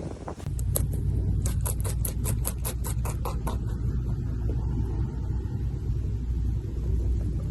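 Strong wind buffeting the microphone, a steady low rumble. About half a second in, a quick run of sharp clicks, about four a second, lasts some three seconds.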